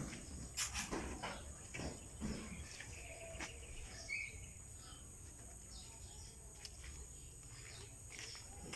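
Quiet rural ambience with faint, brief bird chirps and a few soft knocks in the first few seconds, over a steady low rumble.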